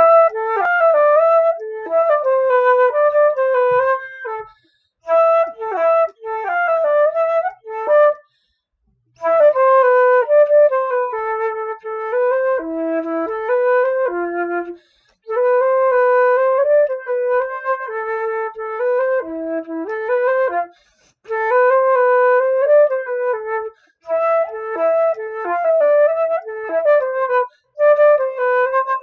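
Solo concert flute playing a chapelloise folk dance tune, a quick melody in phrases of a few seconds, each broken off by a short pause for breath.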